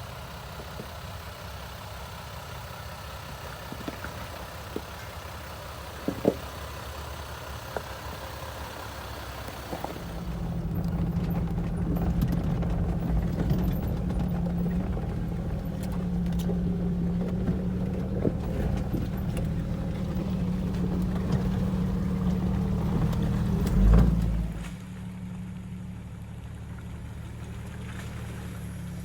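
Vehicle engine running at a low steady drone, with a few faint clicks in the first third. It grows louder about a third of the way in, a loud thump comes near the end, and then it drops back to a quieter drone.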